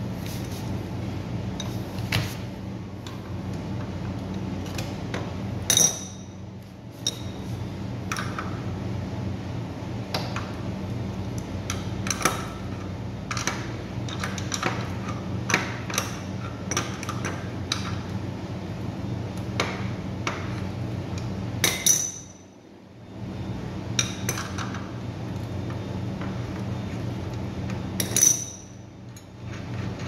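Irregular metal clinks and taps of a wrench working the rear axle nut of an electric scooter, with three louder ringing clinks, over a steady low hum.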